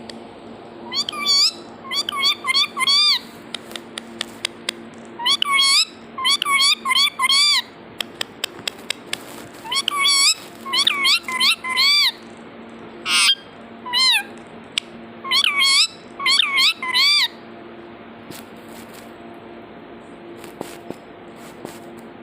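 Pet parrot calling: loud, short notes that rise and fall, repeated in clusters of three to five, with a run of quick clicks in the middle; the calls stop a few seconds before the end.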